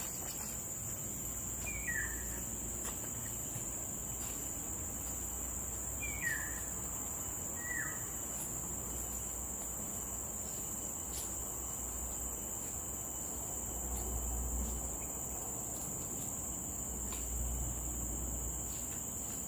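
Steady high-pitched chorus of insects, with a bird giving three short falling calls in the first half.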